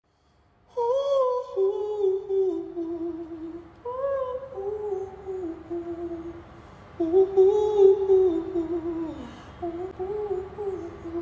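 A single voice humming a wordless tune in four phrases, starting just under a second in, the third phrase ending in a falling slide.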